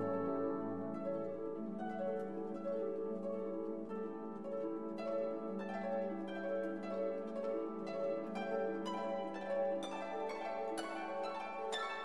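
Background music: a slow melody of plucked, harp-like notes over a held low note.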